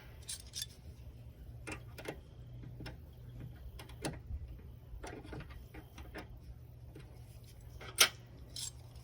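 Scattered light clicks and taps of metal hand tools and bolts being handled while fitting intake manifold bolts, with one sharper click about eight seconds in, over a low steady hum.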